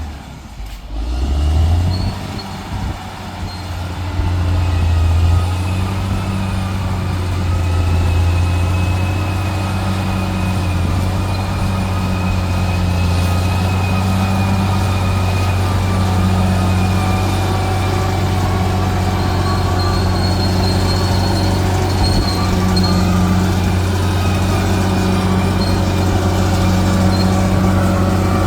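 Bulldozer's diesel engine running steadily under load. It drops out briefly right at the start, then holds a constant low drone.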